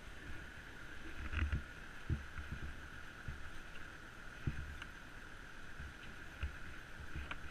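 Tractor engine running steadily at idle, with a few dull thumps from someone moving around and handling the stuck ATV.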